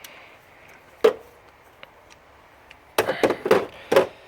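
A ratchet with a 10mm socket clicking and knocking against metal as it works a bolt on the alternator: one sharp click about a second in, then a quick run of about five knocks near the end.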